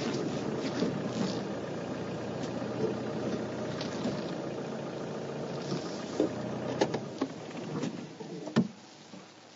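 Safari vehicle's engine running as it creeps forward over rough ground, with scattered knocks and rattles from the body, then a sharp knock near the end as the engine is switched off and the drone stops.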